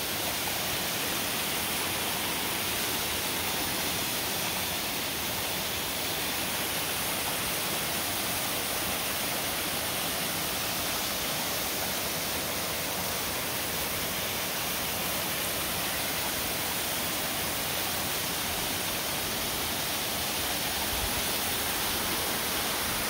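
Waterfall cascading down a rock face into a pool: a steady, even rush of falling water.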